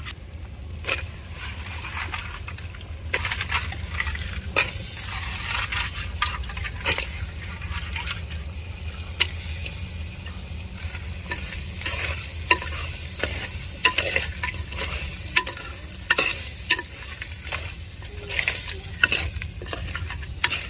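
Crabs frying and sizzling in a pan of sautéed tomato, shallots and ground spices, stirred with a spoon that knocks and scrapes against the pan many times.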